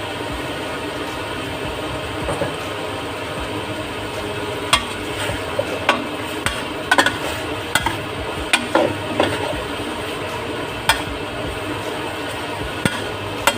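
Chicken with carrots, potatoes and garlic sautéing in margarine: a steady sizzle, with a utensil stirring and clicking against the pan, the clicks coming more often from about a third of the way in.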